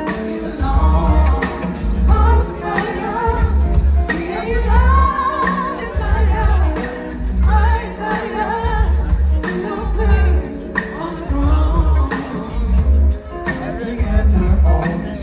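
Live band music played through a festival sound system, with a lead vocalist singing a melody over a heavy bass line.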